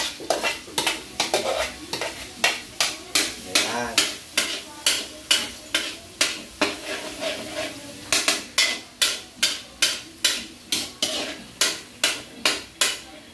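Spatula scraping and stirring in a metal wok in quick, regular strokes, about two to three a second, while garlic sizzles in hot annatto oil at the start of a sauté.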